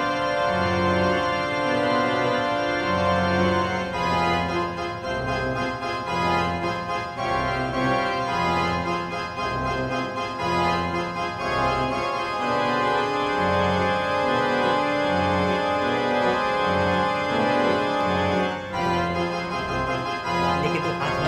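Background film score: held organ-like chords over a low bass note that pulses about once a second.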